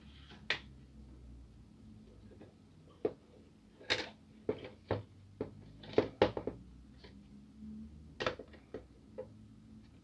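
Irregular clicks and knocks of hard plastic and metal as a long replacement part is handled and set into the plastic frame of a Kyocera DK-150/DK-170 drum unit. The loudest taps come about four and six seconds in and again near eight seconds.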